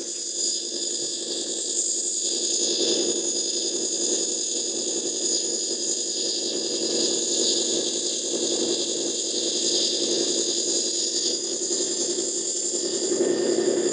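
Hydraulic pump of a large RC hook-lift dump truck running steadily under load as the hook arm rolls the dump bin off, a continuous high electric whine over a lower hum that swells slightly near the end.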